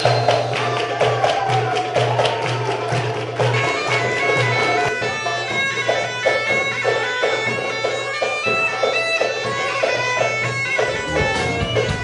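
Music: a wind-instrument melody over a steady low drone, in the manner of bagpipes. The drone stops a few seconds in, and a run of quick, higher notes follows.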